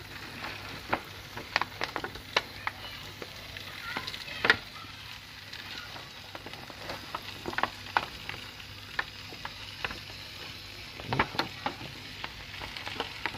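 Lamb shanks and their juices sizzling in a foil tray on a hot barbecue grill, a steady hiss with irregular sharp crackles and pops, the loudest about four and a half and eleven seconds in.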